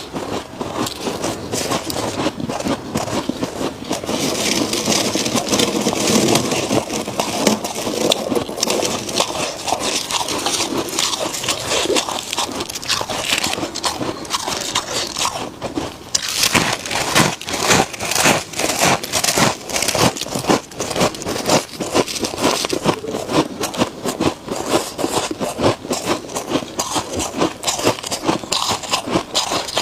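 Freezer frost being bitten and chewed: dense, rapid crisp crunching, with a short pause about halfway through.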